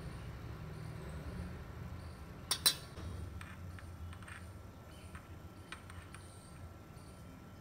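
A metal spoon clinking against steel spice cups and a small glass jar as spices are spooned out: a sharp pair of clinks about two and a half seconds in, then several lighter taps, over a low steady hum.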